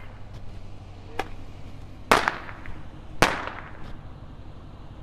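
Fireworks going off: a light pop about a second in, then two loud sharp bangs about a second apart, each with a short ringing tail, and a few fainter pops.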